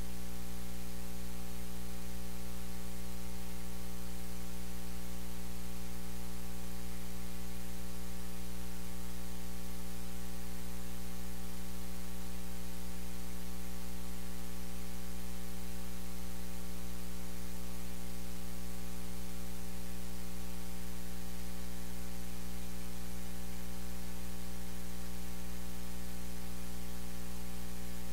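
Steady electrical mains hum, a low buzz with several even overtones, over a layer of hiss.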